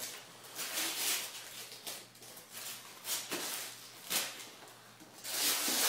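Wrapping paper rustling and tearing as presents are unwrapped, in short noisy bursts about a second apart.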